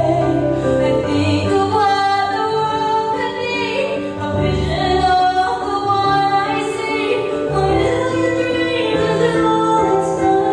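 Song with a woman singing long, held notes, without clear words, over instrumental backing.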